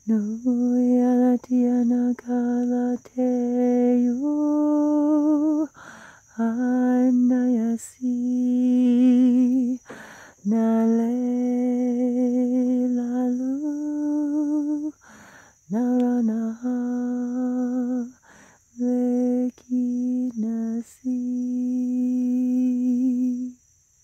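A woman's voice singing wordless light-language toning: a series of long held notes with vibrato, broken by short breaths, the pitch stepping up and down and sliding into some notes.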